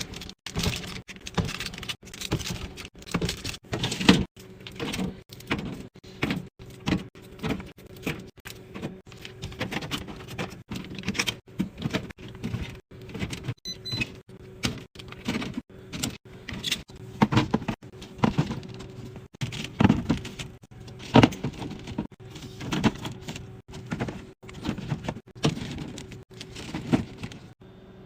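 Repeated clatter, clinks and knocks of food containers, cans and bottles being handled and set into a fridge, in short snippets broken by abrupt cuts.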